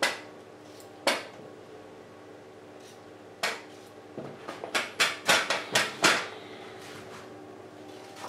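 Chunks of new potato dropped into a metal roasting pan, each landing with a sharp knock: one at the start, one about a second in, another at three and a half seconds, then a quick run of drops in the middle.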